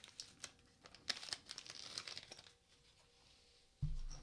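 Packaging crinkling and rustling with a few small clicks as the knife is unwrapped and handled. A low rumble starts near the end.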